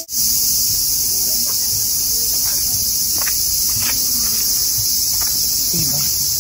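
A steady, high-pitched chorus of cicadas in summer woodland, far louder than anything else, with a few faint clicks and low voices beneath it.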